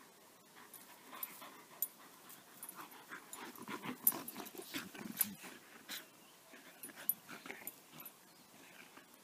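Two dogs play-fighting: low play growls and panting, with scattered short snaps and scuffles as they wrestle in the grass.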